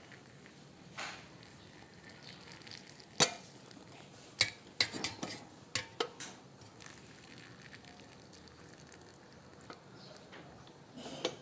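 Hot water poured from a metal kettle into a glass teapot's steel infuser, a faint steady trickle, with a cluster of sharp clinks of metal on glass and steel about three to six seconds in.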